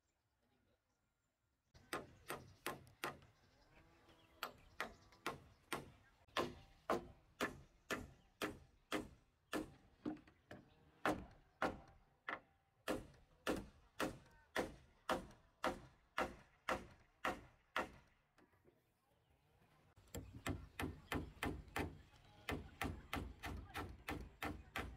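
Hammer driving nails into a timber roof frame: a steady run of sharp strikes, about two a second, starting about two seconds in. After a short lull the strikes come faster near the end.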